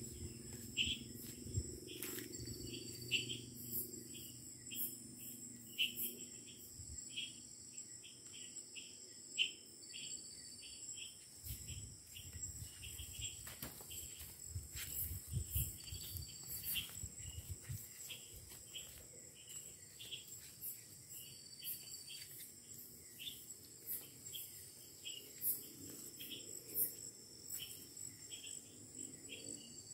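Night insect chorus in tropical forest: steady high-pitched droning with short chirps repeating about twice a second. Low rustling comes through at the start and again in the middle.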